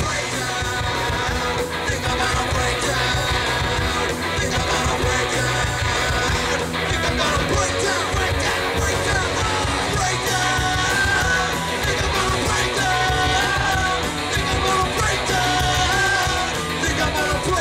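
Live ska-punk band playing electric guitars, bass guitar and drums, with the lead singer's voice over them.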